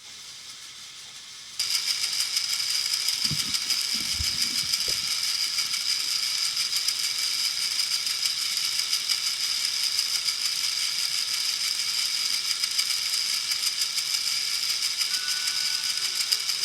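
Battery-powered Plarail toy trains running: a steady, dense mechanical rattle of small geared motors that starts suddenly about one and a half seconds in, with a few faint low thumps a little after.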